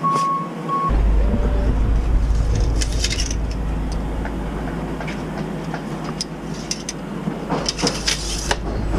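A steady low rumble, with a few short metallic rattles from a steel tape measure being pulled out and handled, around three seconds in and again near the end.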